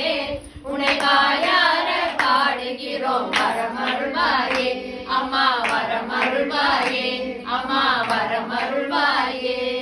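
A group of voices singing a Tamil devotional song to Lakshmi in unison, with hand claps keeping time.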